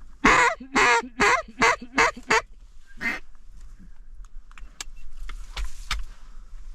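A duck call blown to work incoming ducks: about six loud, raspy quacks in quick succession, then one more about three seconds in. After that there are only faint clicks and rustling.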